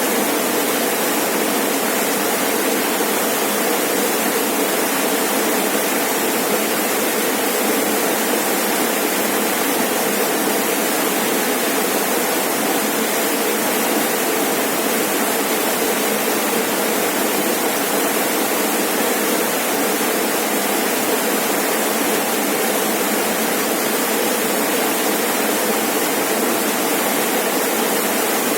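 Rainforest waterfall: water pouring and splashing in a loud, steady rush that does not change.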